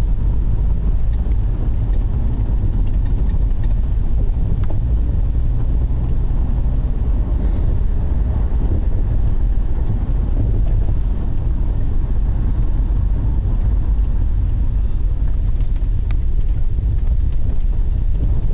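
Steady low rumble of a car driving, heard from inside the cabin: engine and road noise at an even level.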